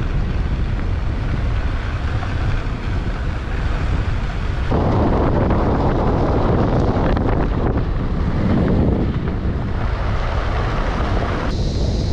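Wind buffeting the microphone of a camera held outside a moving car, over a steady low rumble from the car running along a dirt road; the wind noise grows louder about five seconds in.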